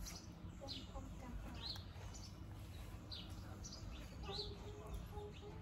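A bird chirping over and over, short rising chirps roughly once a second, over a faint outdoor background.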